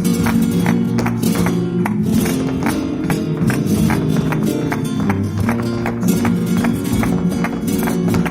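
Flamenco guitar music in the farruca style, with plucked notes under a regular beat of sharp percussive strokes.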